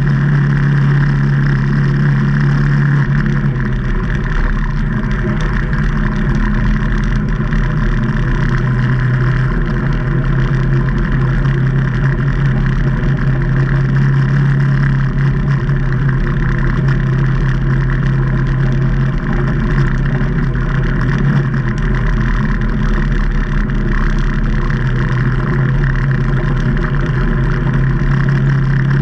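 Can-Am Maverick Trail 800 side-by-side's Rotax V-twin engine running steadily under way, its pitch dipping and rising a few times as the throttle changes.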